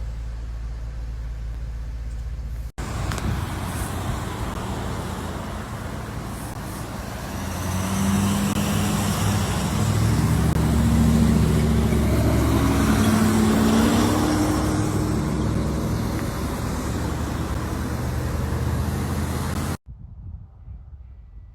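Road vehicle noise: a steady low rumble, then after a cut, traffic with an engine passing close by, loudest in the middle, before a cut to much quieter sound near the end.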